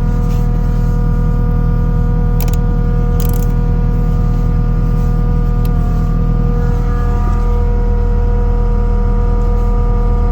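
Kubota diesel engine of a Takeuchi TL12 tracked compact loader running at a steady speed, with a couple of brief high clicks about two and three seconds in.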